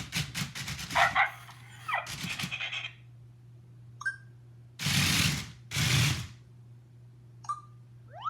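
WowWee CHiP robot dog making electronic bark and chirp sounds through its speaker: a run of rapid clicks and beeps, a falling whistle-like glide, then two short loud barks about a second apart, and short chirps with a rising glide near the end. A steady low hum runs underneath.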